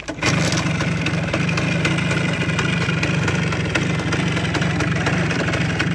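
A Voskhod 3M-01's 175 cc single-cylinder two-stroke motorcycle engine is kick-started and catches straight away, about a quarter-second in. It then runs steadily at idle with a fast, even firing rattle.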